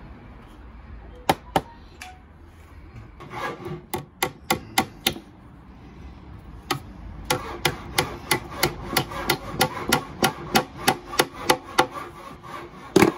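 Claw hammer driving a nail into a pine board: a few scattered blows, then a quick, even run of light taps, about three a second, ending in one harder blow.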